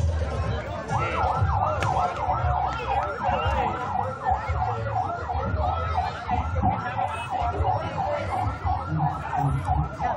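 An electronic siren on a fast yelp cycle, its pitch sweeping up and down about three times a second. It starts about a second in, over a low rumble.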